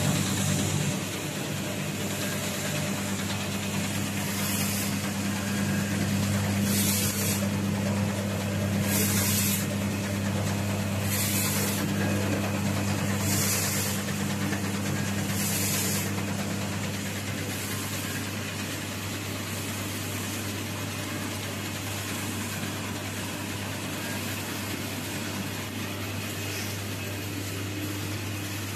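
DTF film printer with its automatic powder shaker running: a steady low machine hum under an even hiss, with a short high hiss repeating about every two seconds through the middle stretch.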